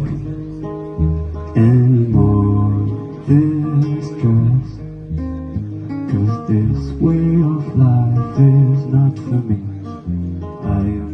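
A band playing an instrumental passage: strummed acoustic guitar over bass guitar and drums, with no singing.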